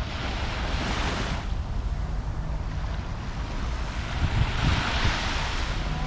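Waves breaking on the beach, with two swells of surf washing in, one in the first second or so and a louder one from about four seconds in. Wind rumbles on the microphone throughout.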